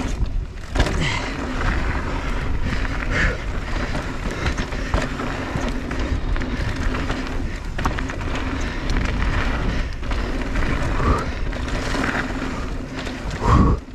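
Electric mountain bike riding down a trail: wind rushing over the microphone with tyre noise and scattered rattling clicks from the bike, under a faint steady low hum. A short louder burst comes near the end.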